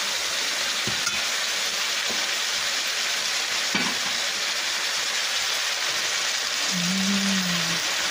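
Ackee and saltfish with onions and sweet peppers sizzling steadily in a frying pan, with a few light clicks of a fork stirring it. A short low hum comes near the end.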